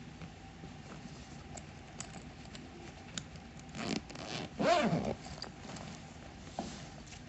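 Backpack zipper being pulled open or shut once, about four seconds in, amid light clicks and rustles of the bag being handled.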